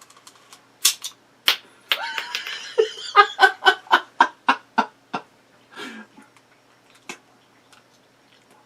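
Toy cap gun being fired: several sharp cracks, with a rapid run of short ringing pulses, about four a second, through the middle. The gun may be misfiring or running out of caps.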